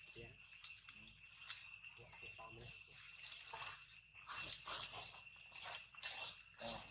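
Steady high-pitched insect chorus holding two tones, over irregular rustling of leaves and plants as a monkey forages through undergrowth; the rustling is loudest about four to five seconds in.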